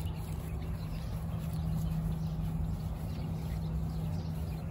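Outdoor background noise: a low rumble with a steady low hum, and faint bird chirps.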